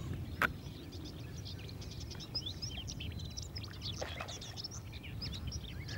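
Small songbirds chirping and twittering busily over a steady low background rumble, with one sharp click about half a second in.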